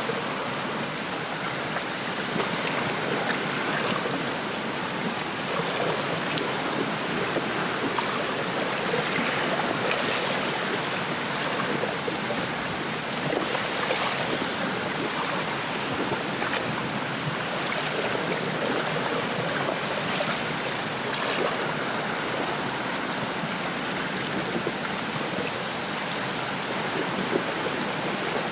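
Wind rustling through a reed bed, with small lake waves lapping at the shore: a steady, even rush with brief louder swishes now and then.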